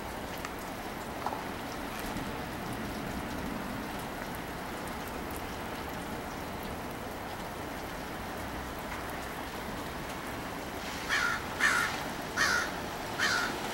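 Steady rain falling, and near the end a crow caws four times in quick succession.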